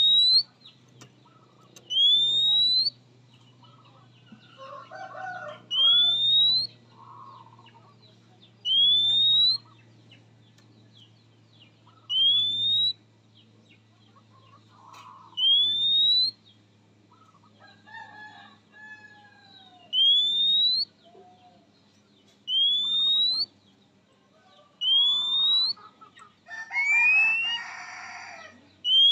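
Oriental magpie-robin (kacer) giving its call to a rival: a single upslurred whistle, repeated about every three seconds. Fainter chirps sound between the whistles, and a louder, fuller call comes near the end.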